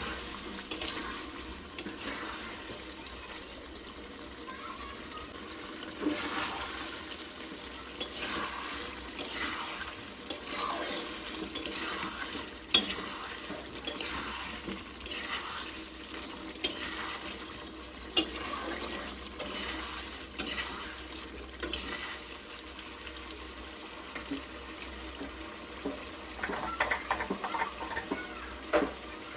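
Curry frying in a pan as it is stirred. A spoon scrapes the pan over a steady sizzle, with sharp clinks of the spoon against the pan now and then and a quick run of them near the end.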